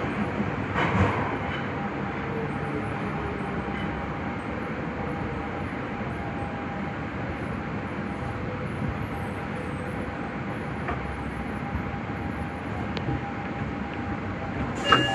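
Subway train running into a station: steady rumble of wheels and running gear with a faint held whine as it slows. Near the end comes a sudden burst of noise with high ringing tones.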